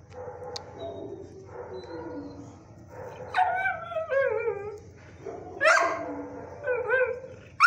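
A dog howling in wavering calls that fall in pitch. Fainter whining comes first, then several loud howls from about three seconds in.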